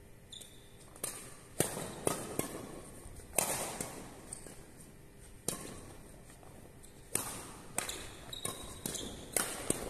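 Badminton doubles rally: rackets hitting the shuttlecock with sharp smacks every second or two, echoing in a large hall, with lighter knocks of footwork in between and a couple of short high squeaks.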